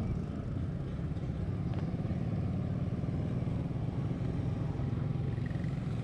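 Motorcycle running steadily on the road, with continuous low engine and road noise.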